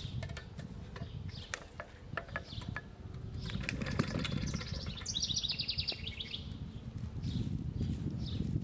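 1947 Clinton gas engine being rope-started: clicks as the starter rope is wound onto the pulley, then a pull about four seconds in that turns the engine over without it catching. A bird trills briefly just after the pull.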